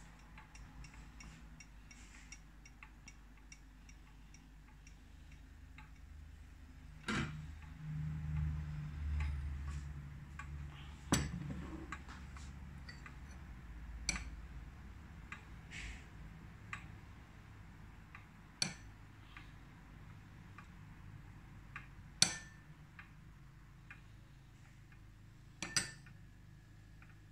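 Kitchenware knocking and clinking: about six sharp knocks of a metal spoon against ceramic bowls and the takoyaki pan, a few seconds apart, as oil is spooned into the pan's wells. A faint, regular ticking runs underneath at the start, and a low rumble comes about eight seconds in.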